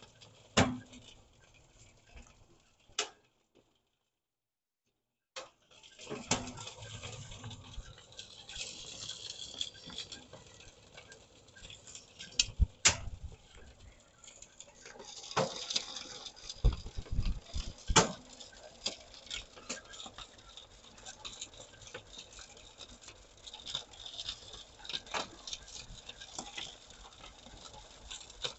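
Topsoil and small stones pattering and clicking as they are screened through a homemade wire-mesh trommel and across a vibrating sheet-metal shaker table, with occasional sharper knocks of stones on metal. About four seconds in the sound cuts out completely for about a second and a half.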